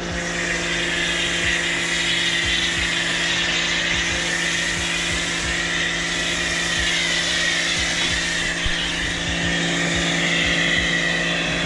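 BIGBOI Washr Flo electric pressure washer running steadily with the trigger held, spraying through its foam cannon: a constant motor hum under a loud hiss of spray.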